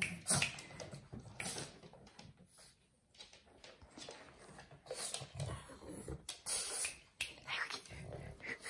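A pug snuffling and snorting in a series of short noisy bursts, with quieter gaps between them.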